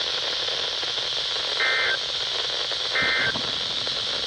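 Weather radio static hiss with two short bursts of EAS/SAME digital data tones, about 1.4 s apart: the end-of-message code sent after a NOAA Weather Radio warning.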